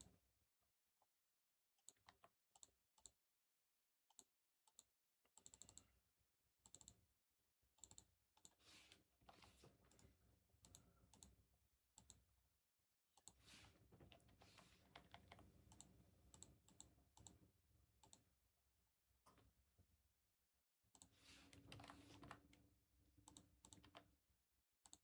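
Near silence, broken by faint scattered clicks and short soft rustles of handling, with a slightly louder stretch about two thirds of the way in.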